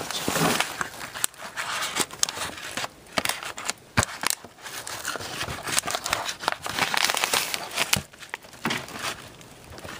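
Crinkling and rustling, with scattered sharp clicks and knocks.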